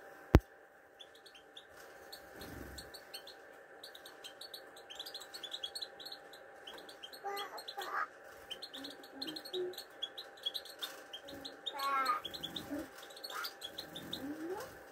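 Caged European goldfinches calling: a steady stream of quick, high twittering chirps, with a few longer warbling phrases now and then. A sharp click sounds just after the start.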